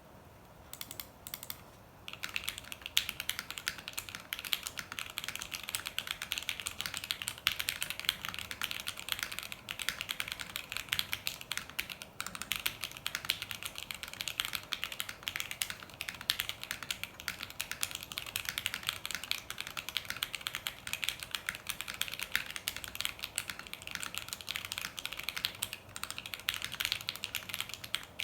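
Gasket-mounted Envy60 60% mechanical keyboard with a 1.5 mm acrylic plate, stock Jwick Black linear switches and PBT keycaps, being typed on. A few separate keystrokes come first, then fast, continuous typing from about two seconds in.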